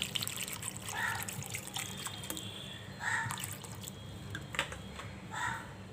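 Cold water being poured into a mixer-grinder jar, a continuous trickle and splash.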